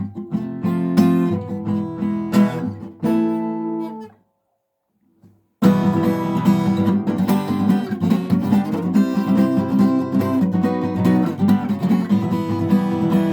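Acoustic guitar strumming chords in a steady rhythm. The playing stops about four seconds in, leaving a second or so of silence, then picks up again with busier strumming.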